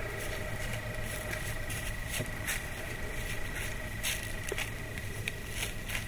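Whitetail deer walking through dry grass and fallen leaves: scattered light rustles and ticks at an uneven pace, over a steady hiss with a faint low hum.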